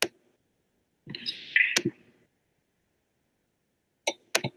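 Computer mouse clicks: a single click, then a short rustling noise with a click in it about a second in, and two quick clicks near the end.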